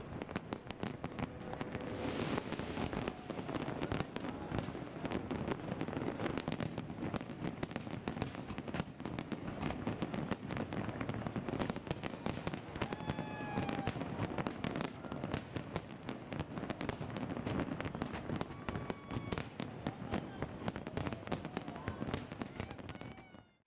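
Fireworks display: a dense, irregular barrage of bangs and crackles from many shells bursting at once, fading away just before the end.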